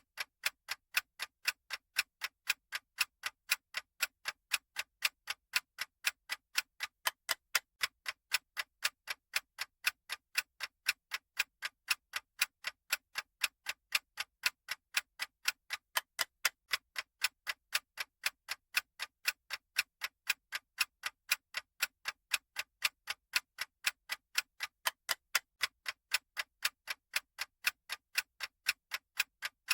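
Clock-ticking sound effect of a countdown timer: sharp, even ticks at about three a second, alternating slightly in loudness like a tick-tock.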